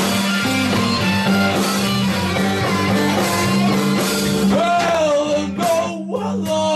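Electric blues band playing live, with slide guitar, bass and drums under a lead line that bends in pitch about five seconds in.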